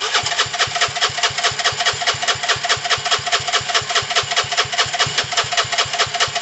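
Gilera DNA 125's four-stroke single-cylinder engine, just started and idling steadily with an even, rapid beat. It is running on fuel fed straight into the carburettor from a bottle, bypassing a fuel pump suspected to be faulty.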